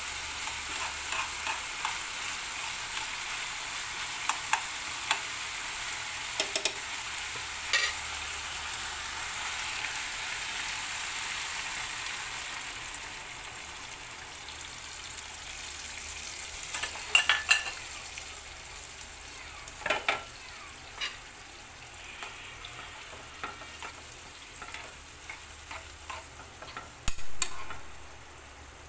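Ground pork, diced potatoes and bell peppers sizzling in a frying pan while a metal spoon stirs, clicking and scraping against the pan. About halfway through, water is poured in and the sizzle dies down to a quieter hiss, with occasional sharp knocks of the spoon on the pan.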